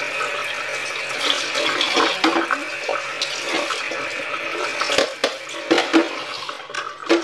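Kitchen tap running into a stainless steel sink as broccoli is rinsed under the stream. About five seconds in come a few sharp knocks and clinks as a plastic bowl and a metal box grater are handled in the sink.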